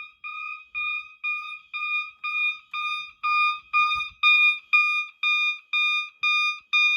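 Fire alarm horns on a Firelite 9200 system sounding in march time, a pitched tone pulsing steadily about twice a second. They get louder about three seconds in.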